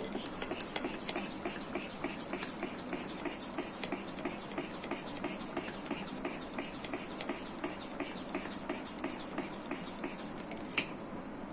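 Hand pump inflating a twisting balloon, worked in quick, even strokes with a hiss of air on each. The pumping stops near the end, followed by a single sharp click.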